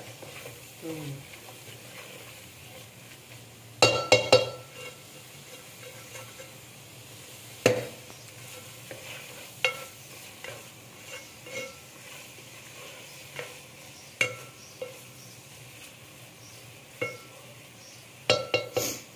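Spatula stirring and scraping scrambled egg khagina in a metal pot, knocking against the pot's side with a ringing clink. There is a cluster of knocks about four seconds in, single knocks every few seconds after that, and another cluster near the end, over a faint steady frying sizzle.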